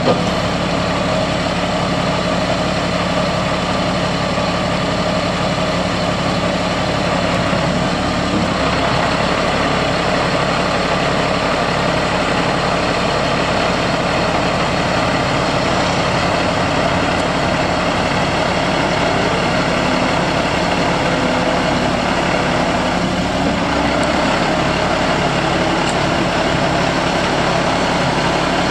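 Kenworth T300 service truck's diesel engine running steadily at idle, driving the hydraulics of its Telelect crane as the boom is raised.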